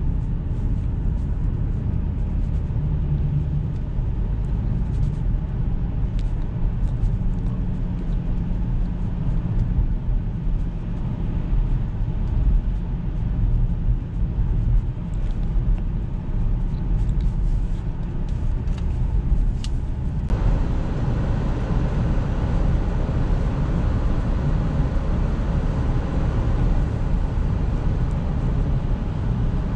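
A 2009 Jaguar XF 2.7 twin-turbo V6 diesel driving: steady engine and road rumble with faint scattered ticks. About two-thirds of the way through, a hiss of road or wind noise rises suddenly and stays.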